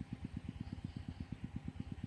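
A small engine running steadily, with a low, even thumping at about nine beats a second.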